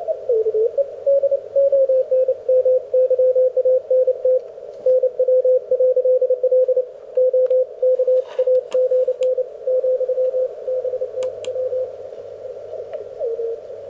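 Elecraft K1 QRP transceiver receiving a Morse code (CW) signal: a clear tone around 500 Hz keyed on and off in dots and dashes over low background noise. The tone slides in pitch at the start and again near the end as the tuning knob moves across the signal, and a few brief clicks come partway through.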